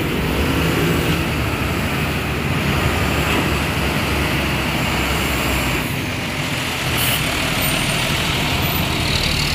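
Diesel engine of a large intercity coach running close by as the bus moves off, a steady low engine noise with a hiss over it.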